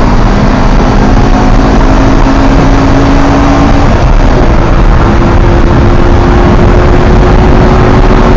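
Naturally aspirated Mitsubishi 4G63 four-cylinder engine pulling hard, heard loud from inside the Colt's cabin. Its note climbs slowly, breaks off briefly about four seconds in, then climbs again, over a steady rush of road and wind noise.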